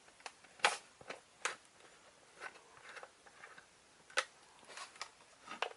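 Plastic screw cap being twisted off a toy water blaster's reservoir: faint, irregular clicks and scrapes of plastic on plastic, one sharper click about four seconds in.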